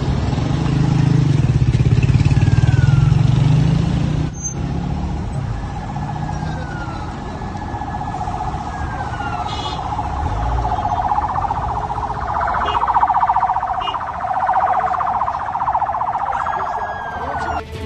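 Emergency sirens wailing over loud street noise, with repeated falling pitch sweeps and a low rumble during the first four seconds.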